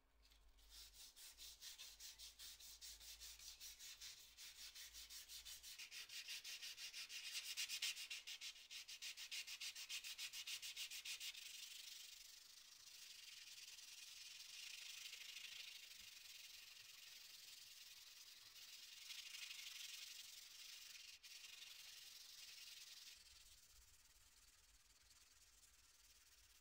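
Sandpaper rubbing back and forth on the steel blade of a Solingen pocket knife. The strokes are quick and rhythmic through the first half, then become smoother and steadier, and stop shortly before the end.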